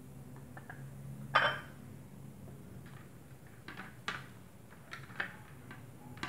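Plates and cabbage leaves being handled while rolling food: a short rustle about a second and a half in, then several light clicks and clinks of crockery, over a steady low hum.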